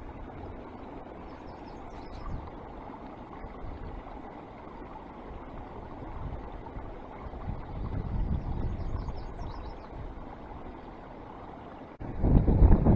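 Wind blowing over the microphone outdoors, a steady low rush, with a few faint high chirps twice and a loud low buffeting gust starting near the end.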